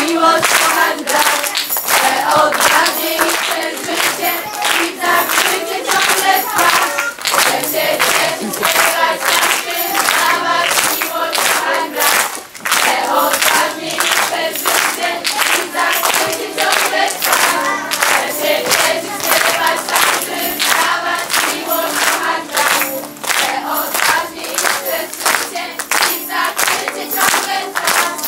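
A group of children and teenagers singing a song together in unison, with steady rhythmic hand clapping about twice a second keeping time.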